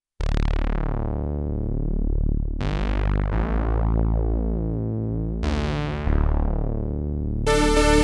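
Oberheim OB-X8 analog polysynth playing low sustained chords with no effects. Three chords start bright and then darken as the filter closes. Near the end a brighter, buzzier sound with strong held notes comes in.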